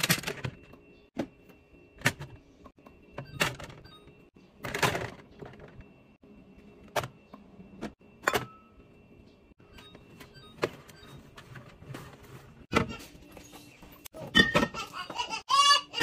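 Groceries being set down one at a time in a refrigerator: a dozen or so separate knocks and clinks of bottles, a canister and a cereal box against plastic and glass shelves and a clear plastic turntable. There is a short squeaky rub near the end.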